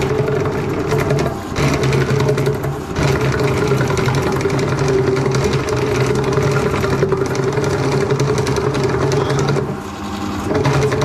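Electric drain-cleaning spiral machine running, its motor turning the spiral cable in the drain pipe with a steady hum. The motor cuts out briefly about one and a half seconds in, again around three seconds, and once more near the end.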